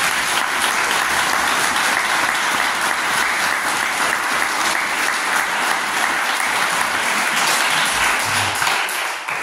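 Audience applauding loudly, the clapping dying away near the end.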